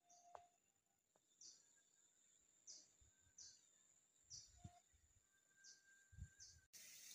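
Near silence with faint, high, short bird chirps repeating about once a second. Near the end the background changes suddenly to a steady hiss.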